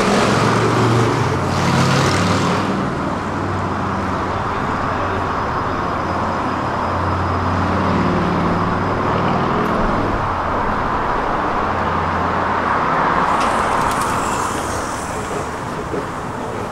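Road traffic: a steady rumble of motor vehicles, with louder hissing swells as vehicles pass near the start and again near the end.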